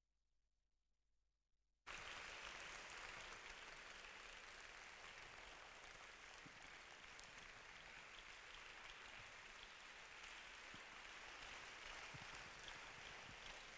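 Silent for about two seconds, then a congregation clapping: faint, even applause.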